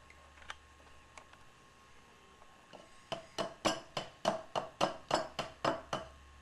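A utensil tapped about eleven times against the rim of a glass, three to four taps a second with a short ring after each, knocking the thick foam mixture off into the glass. Two light clicks come first.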